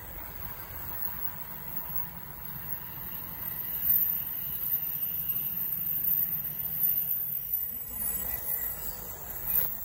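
E5-series Shinkansen train passing at speed, a steady rush of wheels and air that swells through the middle and eases off after about seven and a half seconds as the last cars go by.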